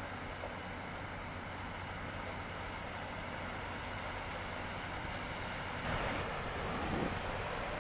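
Steady low engine hum of a passing ship heard across the harbour water, with wind rumbling on the microphone. About six seconds in, a louder rush of wind and water joins it.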